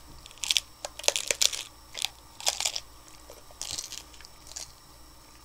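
Crunchy hard taco shells being bitten into and chewed: a quick cluster of crisp crunches in the first three seconds, then a few slower, spaced crunches.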